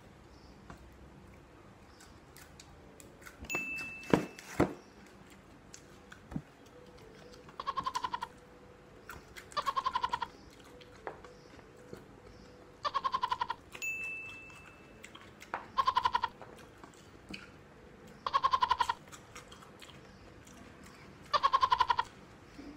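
An animal bleating, like a goat or sheep: short quavering calls repeated every two to three seconds from about eight seconds in. A few sharp clicks come before the calls begin.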